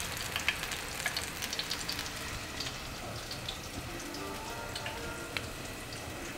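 Hot oil sizzling and crackling steadily in a frying pan.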